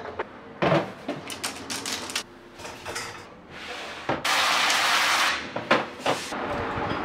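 Handling sounds of kitchen containers: a run of clicks and clinks as glass spice jars are lifted in a drawer, then a loud steady rushing noise for about a second and a half, then a few sharp knocks as plastic lunch boxes are slid into a cabinet.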